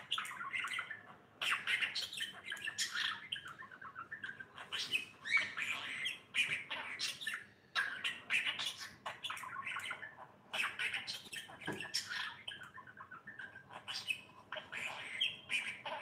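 Budgerigar chattering and warbling: quick runs of chirps and squawks in bursts, with short pauses between them.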